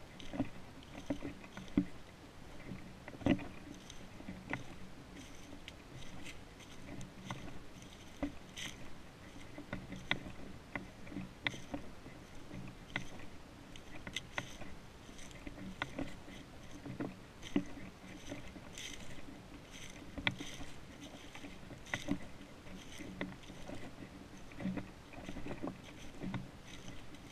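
Walking footsteps through dry fallen leaves, an even run of rustling steps about one to two a second.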